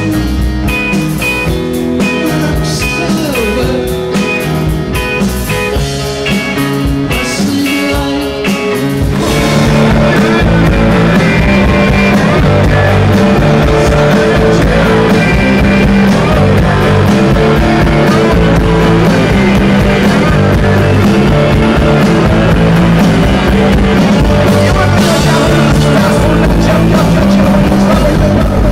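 Rock music with guitar and singing; about nine seconds in it cuts to another, louder and denser piece of music.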